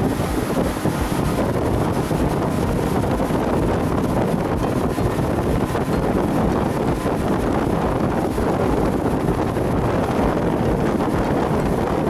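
Steady wind buffeting the microphone on a pontoon boat under way, mixed with the rush of the boat's motor and water.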